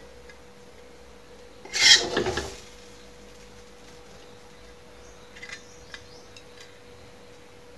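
Metal spatula scraping the wok and the china plate as stir-fried shrimp is dished out: one loud rasping scrape about two seconds in, then a few light clinks near the end. A faint steady hum runs underneath.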